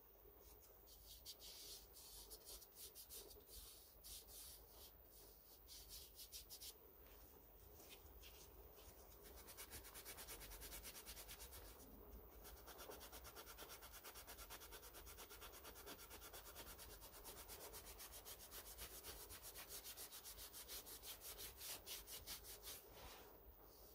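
Green abrasive scouring pad scrubbed back and forth over a metal lathe's bed ways, a faint rasping hiss with each stroke, working off leftover rust. The strokes come quicker and steadier from about nine seconds in, with a short pause near twelve seconds.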